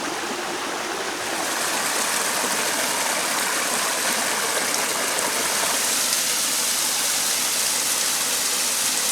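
Creek water rushing steadily, a little louder from about a second and a half in.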